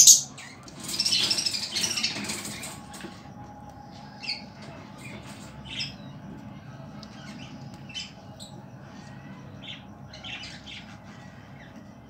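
Budgerigar calling: a sharp, loud call right at the start, a longer warbling chatter from about a second in, lasting around a second and a half, then short chirps scattered through the rest over a low steady hum.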